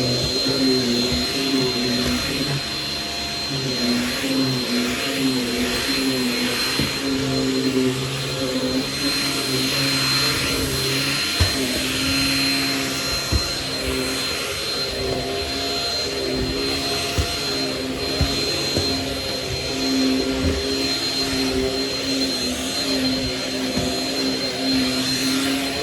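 Shark Rocket stick vacuum running with its power head on carpeted stairs: a steady motor whine whose lower pitch wavers as the head is pushed and pulled, with a few light knocks.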